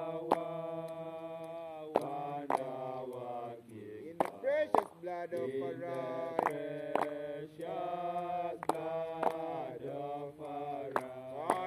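Male voices chanting a slow Rastafari Sabbath chant, holding long notes that slide from pitch to pitch. Sharp knocks or claps cut in at uneven intervals.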